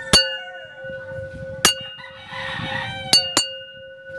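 A small resonant chime, bell or glass-like, struck four times, each strike ringing on in a clear tone; it is the sound cue used to condition the insect to go to its box. A rooster crows in the background about two seconds in.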